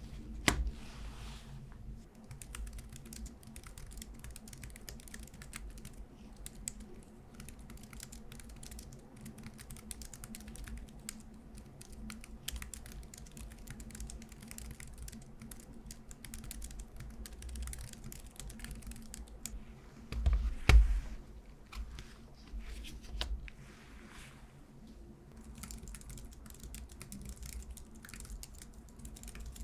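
Typing on a compact folding Bluetooth keyboard (NILLKIN Cube Pocket): a steady run of quick, light key clicks, with a brief louder knocking about twenty seconds in.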